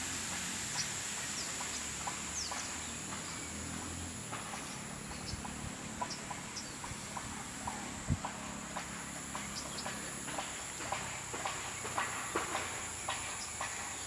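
Outdoor ambience carried by a steady, high-pitched insect drone, with a low rumble in the first half and a few short bird chirps. From about halfway in, footsteps and rustling on a dirt path add frequent short clicks.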